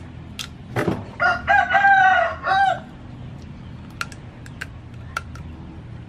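A rooster crows once, a long arching call in three parts that starts about a second in and lasts about a second and a half. Scattered sharp clicks before and after it come from crab shell being bitten and cracked.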